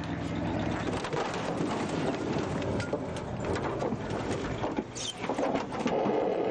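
Outdoor wind buffeting the microphone: a steady rushing noise with small crackles, and a brief high chirp about five seconds in.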